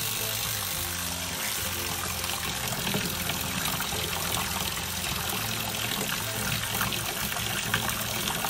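A 12 V diaphragm spray pump running and jetting water from its outlet hose into a tub, a steady splashing and churning. The pump is drawing in and pushing out water properly after being repaired.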